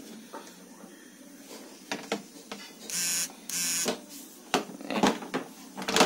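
Plastic pulsator of a top-loading washing machine being handled and lifted out of the tub: a few light knocks and clicks, and two short scraping rasps of plastic on plastic about three seconds in.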